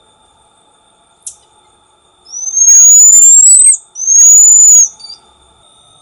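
Black-tufted marmoset calling: a brief high chirp about a second in, then two long, loud, high whistled phee calls. Each whistle slides slowly upward in pitch and drops off sharply at its end.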